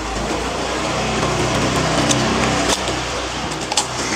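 A knife cutting through the cardboard of a long shipping box: a continuous scraping rasp that grows stronger, with a few sharp clicks along the way.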